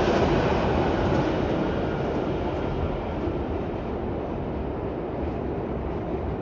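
Tugboat's diesel engines running as it passes, a heavy steady rumble that fades over the first few seconds as the boat moves away, then holds.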